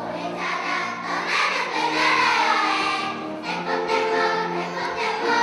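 Large kindergarten children's choir singing held, sustained notes, accompanied on a grand piano.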